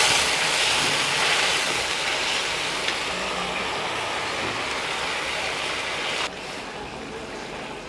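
Water and fried onion-tomato-capsicum masala in a kadhai hissing and sizzling as they heat, fading slowly and dropping suddenly to a quieter hiss about six seconds in; the mixture is coming to the boil.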